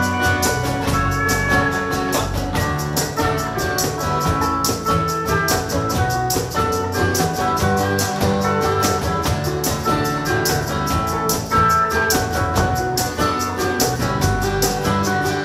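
Live folk-rock band playing an instrumental break with no singing: a drum kit keeping a steady beat under upright bass, acoustic guitar and banjo, with a lead melody line on top.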